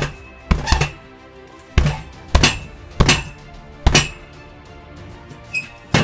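Fists thudding into a hanging heavy punching bag, about six blows at an uneven pace, over steady background music. A sharper crash with a bright ring comes right at the end.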